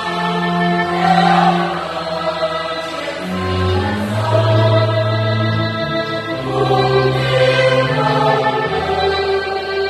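Mixed church choir of women's and men's voices singing a Catholic wedding hymn in harmony, moving through long held chords.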